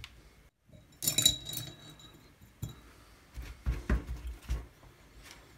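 Workbench handling sounds: a bright clink of small hard objects about a second in, then a single click and a few soft, low knocks and bumps.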